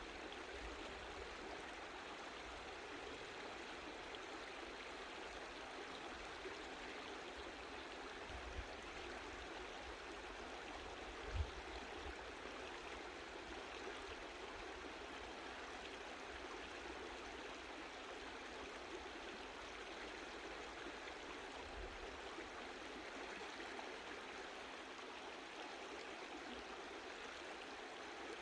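Mountain stream flowing over rocks, a steady, gentle rush of water. Twice, about a third of the way in, there is a brief low thump.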